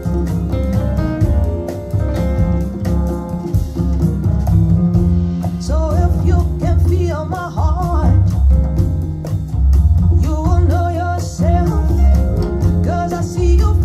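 A song played back through a pair of floorstanding hi-fi loudspeakers as a listening demo: guitar and a deep bass line, with a singing voice coming in about six seconds in.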